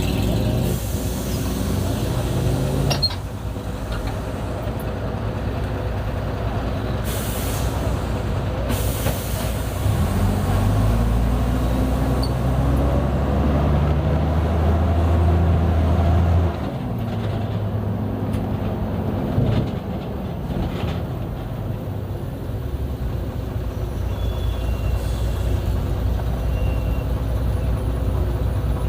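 Mercedes-Benz O-500U city bus diesel engine running, with two short air-brake hisses and then a louder engine pull lasting several seconds that drops off suddenly.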